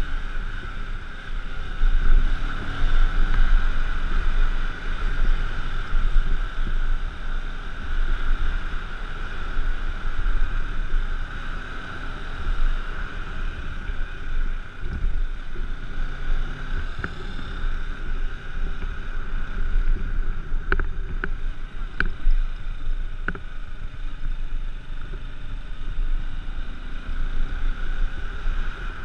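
G-max 150 motorcycle riding along, heard from a helmet-mounted camera: a steady rush of wind on the microphone over the running engine and tyres on a wet road. A few sharp clicks come about three-quarters of the way through.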